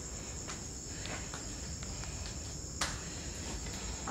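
Night insects calling in a steady high drone, with faint footsteps scuffing grit on a concrete floor and one sharper click about three seconds in.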